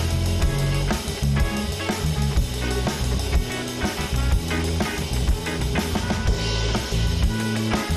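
Band music: a drum kit keeping a steady beat over a bass line, with guitar.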